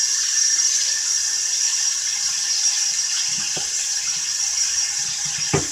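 Kitchen sink faucet running hot water in a steady rush, rinsing pork blood down the drain. There is a light knock about three and a half seconds in and a sharper one near the end.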